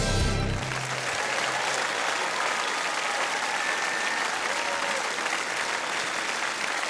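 Audience applauding as the song's last chord cuts off about half a second in, with a low note dying away over the next second or so.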